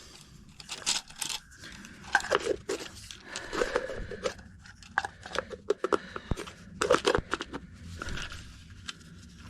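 Irregular crinkling and rustling of packaging with scattered small clicks and knocks as items are handled and unwrapped.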